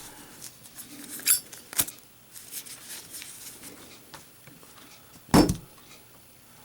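Zippo windproof lighter during a drop test: two sharp metallic clicks in the first two seconds, then one loud clack about five and a half seconds in.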